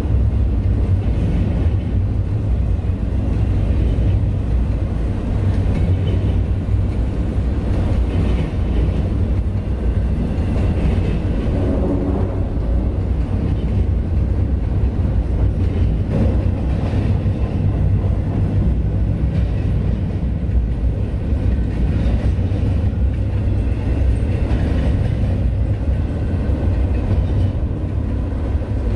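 Freight train crossing the railroad bridge overhead, heard from beneath it as a steady, heavy rumble.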